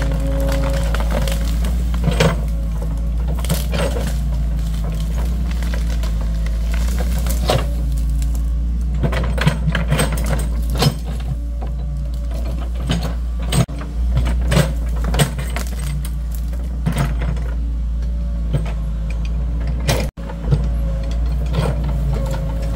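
Compact excavator's diesel engine running steadily under load, with repeated cracks and knocks as the bucket digs into and tears out soil, rocks and tree roots.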